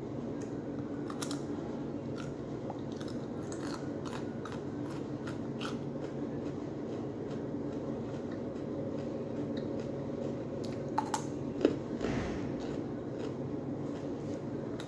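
Crunching and chewing of raw carrot sticks, with short, crisp crunches scattered throughout, over a steady low hum.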